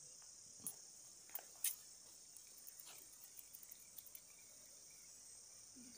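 Faint, steady chirring of an insect chorus, crickets or similar, with a few short clicks in the first two seconds.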